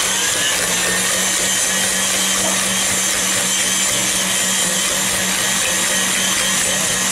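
KitchenAid Classic tilt-head stand mixer running at a steady speed, its motor giving a constant hum while the flat beater churns soft shortcrust dough in the stainless steel bowl.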